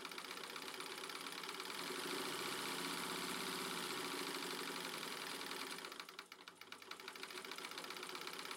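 Vintage Singer electric sewing machine running under knee-lever control. It gathers speed, nearly stops about six seconds in as the lever eases off, then runs up again.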